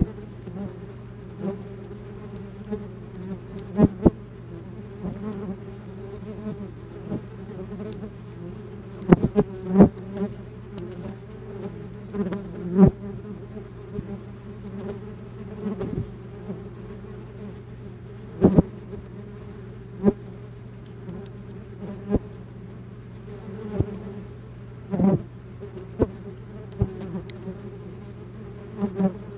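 Wasps buzzing in flight close around the camera at their nest, a steady drone broken by sharp taps every second or two as they strike the camera housing.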